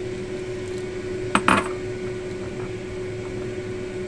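Two quick knocks on a ceramic mixing bowl about a second and a half in, as rice flour is mixed with water in it, over a steady background hum.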